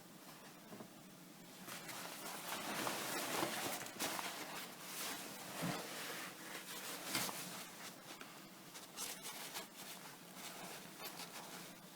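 Close handling noise from trousers and a zipper: fabric rustling and scraping, with small clicks, as a metal zipper stop is pressed and bent into place by hand.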